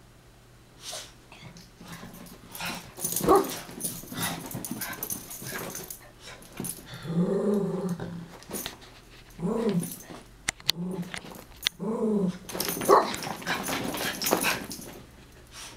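Chihuahuas play-fighting: a series of short growls and grunts mixed with the scuffling of paws and bodies on carpet. The growling is play, not aggression.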